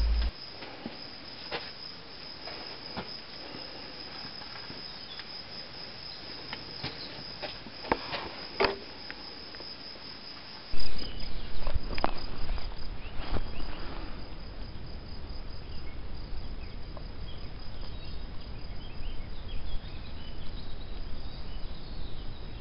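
Insects chirping in a steady, high, even trill, with scattered clicks and knocks. About halfway in, a sudden loud knock is followed by a low rumble that runs on to the end.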